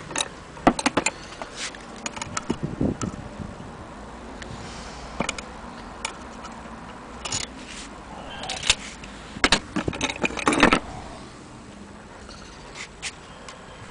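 Handling noise from small metal gramophone parts and a steel tape measure being moved about: scattered clicks, knocks and light scrapes, with the loudest run of knocks about ten seconds in.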